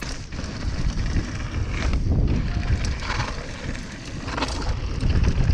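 Wind buffeting the microphone: a loud, uneven low rumble, with a few short faint sounds above it.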